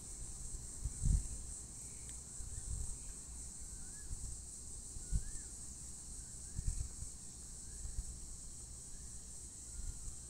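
A steady high-pitched drone of insects, with faint short bird chirps repeating every second or so and occasional low thumps.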